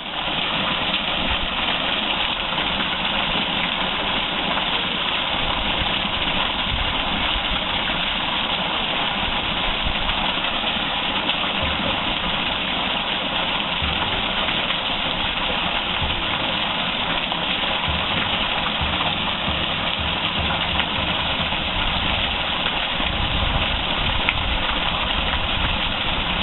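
Water rushing steadily over a small waterfall and down a flowing stream, an even unbroken splashing.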